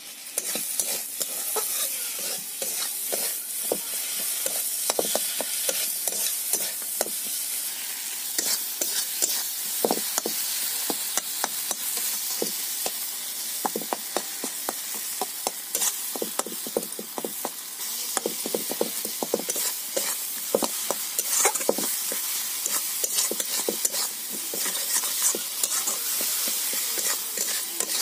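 Vegetables frying in oil in a metal kadai, sizzling steadily, while a metal spatula stirs and scrapes against the pan with frequent short clicks and scrapes.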